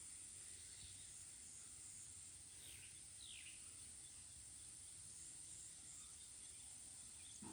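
Faint, steady high-pitched insect drone, with two quick falling bird calls close together about three seconds in.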